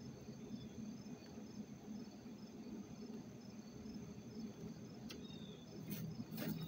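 Crickets chirping: short high chirps about twice a second over a steady high trill, with a low steady hum underneath. A few sharp clicks come near the end.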